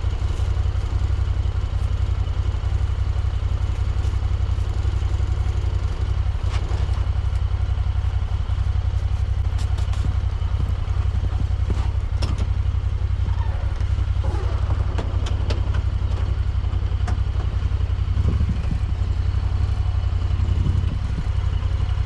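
Vehicle engine idling steadily, with scattered short knocks and clanks in the middle stretch, from the plow mount being worked into place.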